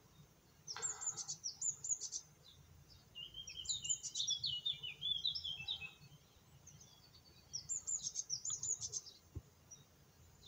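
A small songbird singing: three phrases of rapid high chirps and trills, each one to three seconds long, with short pauses between them.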